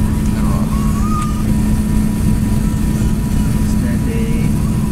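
Cabin noise inside an Emirates Airbus A380 on the ground: the jet engines running at low thrust as a steady low rumble with a constant hum, while the airliner taxis.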